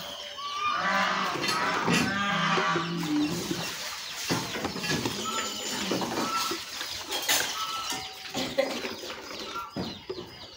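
A cow mooing, one long low call in the first few seconds, followed by short high bird chirps and a few sharp knocks.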